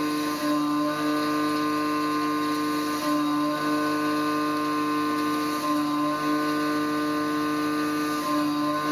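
CNC milling machine plunge cutting: a steady whine made of several pitches, which dips briefly every two to three seconds as the cutter goes through its repeated plunges.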